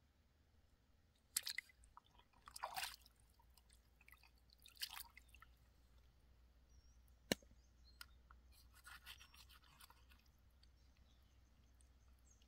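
Faint, intermittent scraping and rasping strokes of a knife working on a freshly caught fish, with one sharp click about seven seconds in.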